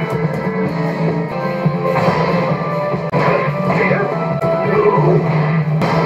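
Rock music with electric guitar, playing steadily.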